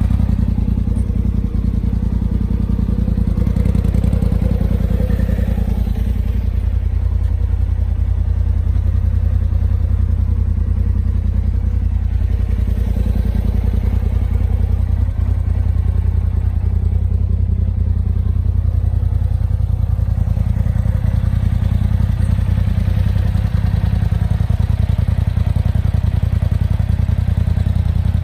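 2018 Polaris RZR XP Turbo's turbocharged twin-cylinder engine idling steadily, a loud continuous low thrum with no revving.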